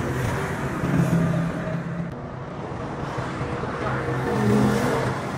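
Motor vehicle engine running amid road traffic noise, its low engine note shifting slightly now and then.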